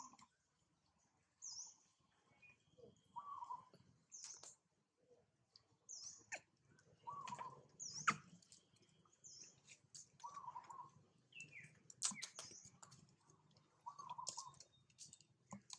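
Birds chirping faintly: a short high chirp repeated about every second and a half, with lower short calls in between and a few sharp clicks.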